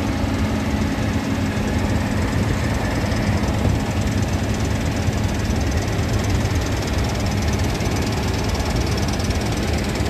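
New Holland CR9060 combine harvesting wheat: engine, threshing works and draper header running in a steady, loud drone.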